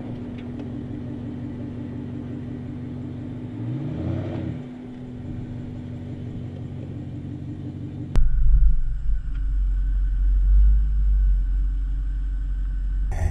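BMW X5 xDrive50i's twin-turbo V8 running steadily as the SUV crawls over rough dirt, with a brief rev that rises and falls about four seconds in. About eight seconds in the sound switches abruptly to a loud, deep rumble of tyres rolling over dirt, picked up by a camera mounted beside the wheel.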